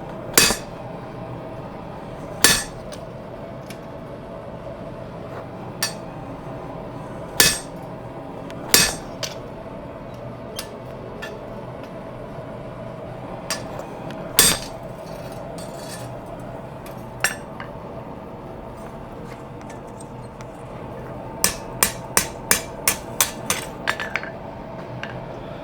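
Hammer blows ringing on a fullering tool driven into a leaf-spring steel sword blade to deepen the fuller. Single heavy strikes come a few seconds apart, then a quick run of about nine lighter strikes near the end, over a steady background hum.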